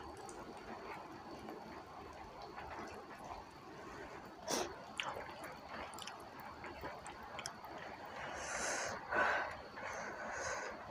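Quiet sounds of eating by hand: soft wet chewing and mouth smacks, with a sharp click about four and a half seconds in and two short hissing sounds near the end.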